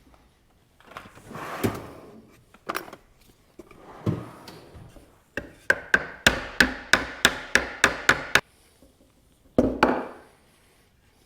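Hammer tapping wooden stretchers loose from a glued-up cherry bow rocker: a quick run of about a dozen sharp wooden knocks, three to four a second, after a few scattered knocks and scrapes of wood, with one heavier knock near the end.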